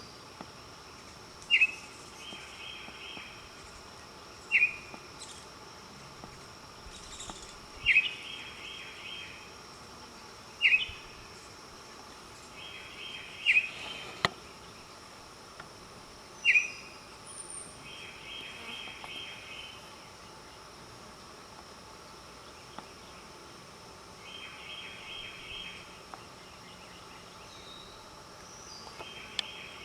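Bird calling with a short, sharp note about every three seconds, with rapid pulsed trills between the notes. A steady high-pitched insect drone runs underneath. A single sharp knock comes about halfway through.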